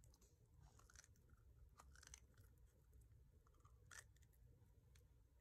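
Faint crackling and soft clicks of a silicone mold being flexed and peeled off a cured resin grinder piece, with one slightly sharper click about four seconds in.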